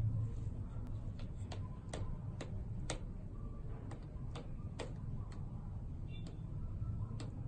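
Sharp, irregular clicks, roughly two a second, over a steady low rumble.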